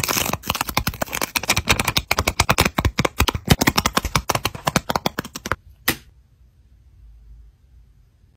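Quick crackly clicks and snaps of stickers being peeled off a sticker sheet with tweezers. The clicking stops about five and a half seconds in, with one more click shortly after.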